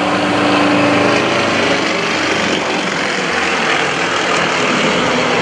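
Nine-cylinder radial engines of Yak-52 and Nanchang CJ-6 aerobatic planes running at power overhead, a loud, steady engine sound whose pitch sags slightly in the first second or so.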